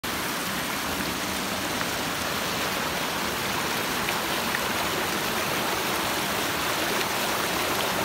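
Small woodland stream rushing over rocks and pouring down a short cascade into a foaming pool: a steady rush of water.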